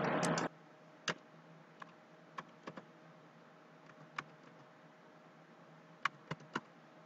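Computer keyboard keystrokes, about nine sharp separate clicks in uneven groups, as the nine-digit barcode number from the test container is typed in. A louder stretch of noise cuts off abruptly about half a second in.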